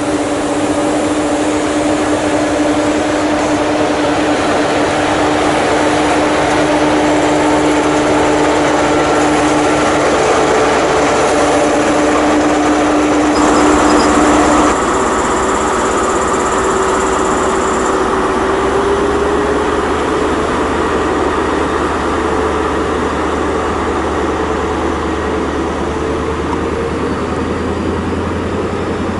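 High Speed Train with Class 43 diesel power cars running past, a steady diesel engine drone and whine over rolling wheels on rail. Partway through the sound changes abruptly to another HST approaching, its engine note slowly rising.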